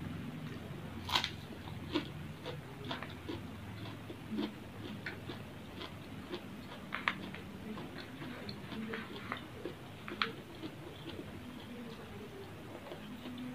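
Eating nasi padang by hand: irregular small wet clicks and smacks of chewing, with light clicks and rustles of fingers working rice on the paper wrapper. The sharpest click comes about a second in.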